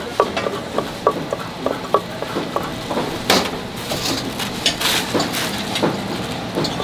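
Knife chopping Korean blood sausage (sundae) into slices on a wooden cutting board: quick knocks of the blade on the wood, about three a second. About three seconds in, the chopping stops for crinkling plastic as the slices are moved onto a bag-covered plate, then a few more knocks as cutting starts again.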